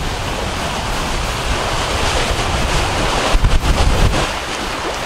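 Wind buffeting the microphone over the rush of sea water under a Lagoon catamaran's bow trampoline as it sails at about nine knots. The rushing grows louder for a moment about three and a half seconds in.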